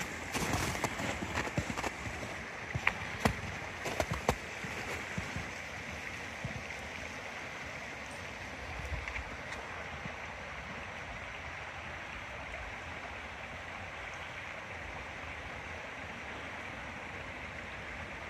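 Boot footsteps crunching on icy snow, fading over the first few seconds as the walker moves away, then a steady rushing noise with no single strike in it.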